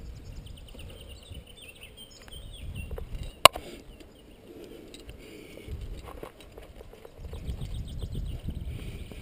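A rock climber's movements heard close up on a helmet camera: scuffs and rustles of hands, clothing and gear against the limestone over a low rumbling noise, with one sharp knock about three and a half seconds in.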